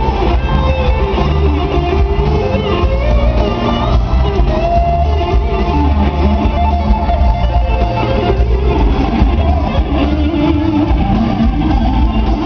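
Live band music played loud through a PA, with an electric guitar prominent over a heavy low end.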